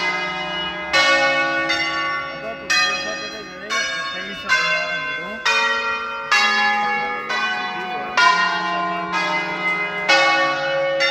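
Ring of ten church bells in D-flat major, rung by hand in the Veronese system: single bells strike one after another about once a second at different pitches, playing a tune, each note ringing on under the next.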